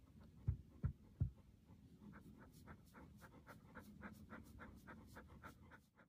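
Dog panting softly in quick, even breaths, about three a second, after three low thumps in the first second and a half.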